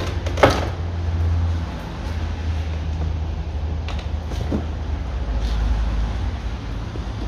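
Seat Toledo Mk2 plastic interior door trim panel being lifted off the door, with one sharp knock about half a second in, then a few faint clicks and handling knocks, over a steady low hum.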